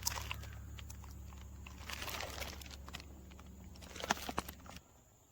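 Packaging being handled during an unboxing: crinkling plastic with scattered clicks and light knocks. A steady low hum runs underneath and stops shortly before the end.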